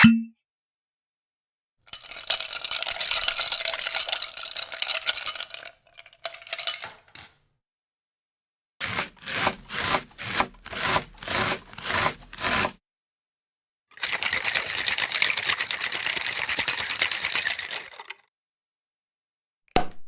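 A run of separate kitchen sound effects with silent gaps between them. First comes metal clinking and scraping against metal cookware, with a ringing edge. Then come about eight even strokes, roughly two a second, then a steady hiss lasting about four seconds.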